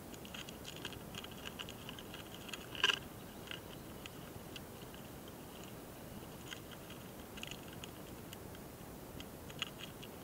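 A mating pair of small longhorn beetles (hosotora-kamikiri) making scratchy ticks and clicks as they move on a branch, recorded very close, with one sharper click about three seconds in.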